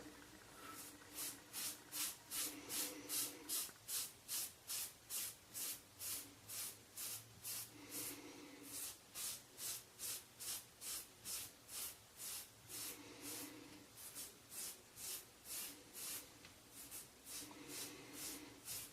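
Rockwell 6c safety razor scraping through a week of head stubble in short, quick strokes, about two to three a second, in runs broken by brief pauses.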